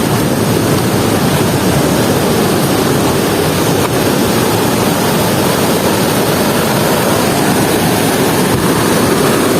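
Loud, steady roar of a waterfall: rushing, falling water with no breaks.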